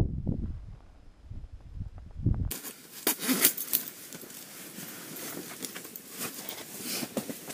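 Wind buffeting the microphone, a low rumble that fades over the first two seconds. Then, after an abrupt change, a fainter steady hiss with many small irregular clicks and crackles.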